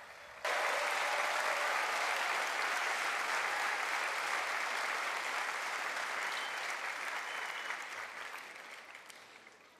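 Large crowd applauding, starting suddenly about half a second in and dying away over the last few seconds.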